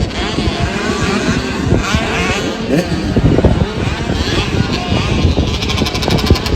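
Several small racing dirt-bike engines revving up and down together, their pitches overlapping and gliding as the bikes accelerate and shift.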